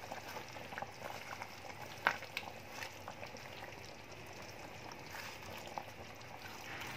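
Chicken and potato curry simmering in a pan with a faint steady bubbling, while a spatula stirs it and knocks lightly against the pan a few times.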